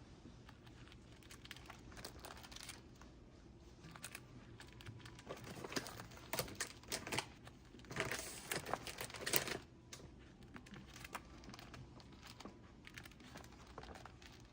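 Crinkling and rustling crackles, thickest and loudest between about five and nine and a half seconds in, with quieter scattered ticks around them.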